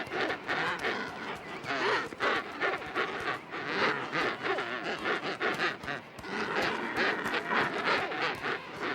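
King penguin colony: many birds calling at once in a dense, overlapping din, with harsh squawks from birds squabbling over their space.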